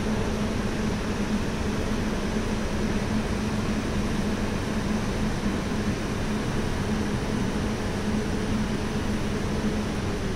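Dubai Metro train standing at the station platform with its doors open: a steady low hum under an even hiss.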